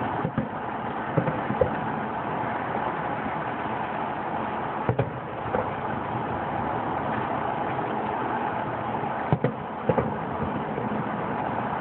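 Distant fireworks going off: several sharp bangs in small clusters, about a second in, around five seconds in and around nine to ten seconds in, over a steady noisy background.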